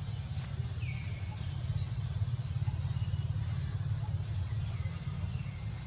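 Outdoor background: a steady low rumble with a faint high hiss, and a few faint short chirps, one about a second in and one near the end.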